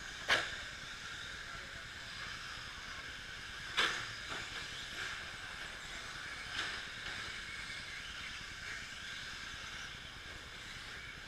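Radio-controlled short-course trucks racing on a dirt track: a steady high whine and hiss from their motors and tyres, broken by three sharp knocks, the loudest about a third of a second in, another near four seconds and a smaller one past six seconds.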